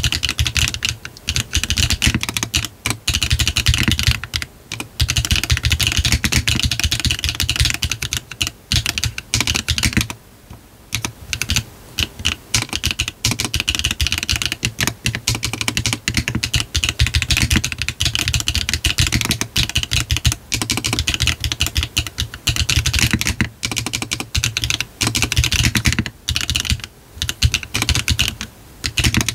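Continuous typing on a GDK DK1-TKL mechanical keyboard with a brass bottom case. It is fitted with HMX 幻紫 switches on a 1.6 mm PCB, with no foam and a hard beans gasket mount, and has cherry-profile PBT keycaps. Fast runs of keystroke clacks break off in a short pause about ten seconds in.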